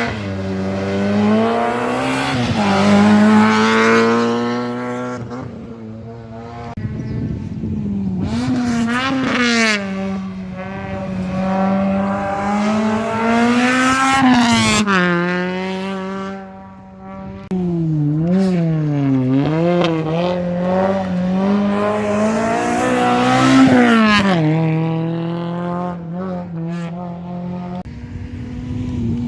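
Rally car engines driven hard on a stage, revving up and dropping back again and again through gear changes and corners. Several passes follow one another with abrupt cuts between them.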